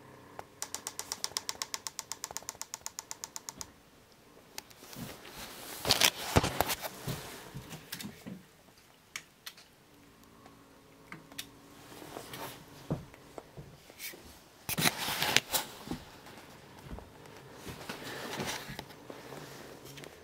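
Handling noise of camera and light-stand gear. It opens with a fast, even run of pitched clicks, about eight a second for three seconds, followed by irregular knocks, bumps and rustling, loudest about six and fifteen seconds in.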